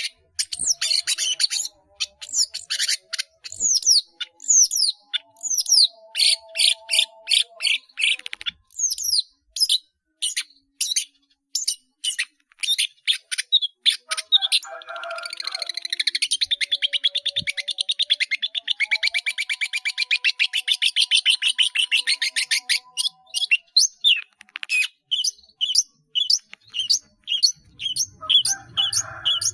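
Long-tailed shrike (cendet) singing a busy song full of mimicked calls of other birds: quick sharp notes and downward-sweeping whistles, with a long fast chattering run in the middle.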